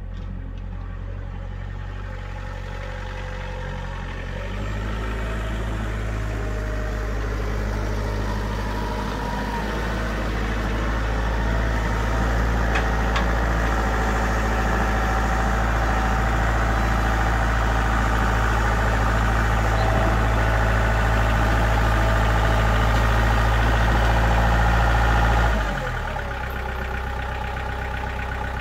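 Kioti compact tractor's diesel engine running, getting louder as the tractor drives up with its loader, then dropping suddenly to a lower, steady idle near the end.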